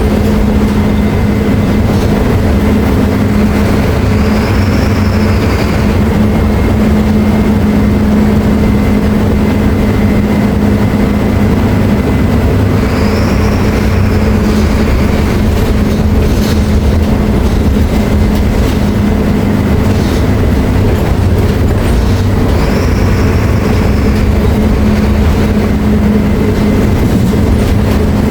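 Mercedes-Benz OF-1724L BT5 city bus's diesel engine running with a loud, steady drone. A short high whine rises and falls three times, about every nine or ten seconds.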